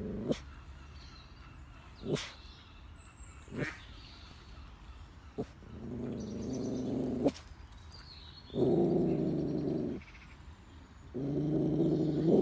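Black-and-white puppy making drawn-out, low-pitched growling whines, three of them in the second half, each lasting over a second, while fixed on ducks. A few short, sharp sounds come earlier.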